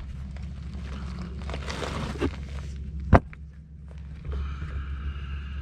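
Shuffling and handling noises during work on a tractor, with one sharp knock a little after three seconds, over a steady low hum.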